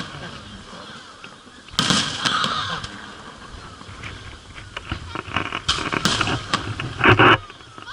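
Fireworks going off: a sharp burst about two seconds in, followed by scattered crackling, and a louder burst near the end.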